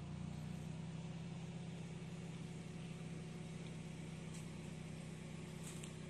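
Car engine running steadily with a constant low drone, heard from inside the vehicle.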